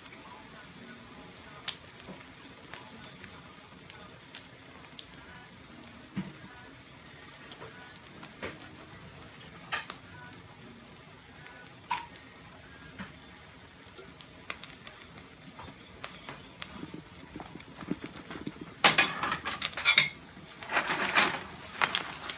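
Egg frying in oil in a nonstick pan, with scattered sharp pops from the hot oil. In the last few seconds a spatula scrapes and clatters against the pan as the egg is turned.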